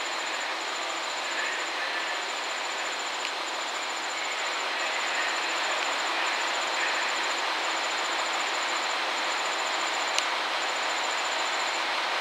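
JR Shikoku 2700 series diesel railcar train drawing slowly closer over station points: a steady hum of diesel engines and running gear that grows a little louder as it nears. A faint high pulsing tone runs throughout, and a single sharp click comes about ten seconds in.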